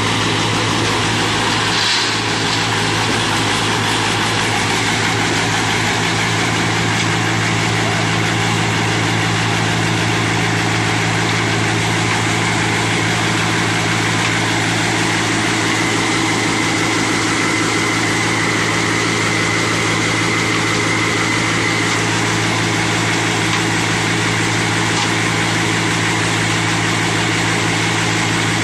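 Concrete mixer pump running steadily under power, a constant engine hum with mechanical clatter, and a brief knock about two seconds in.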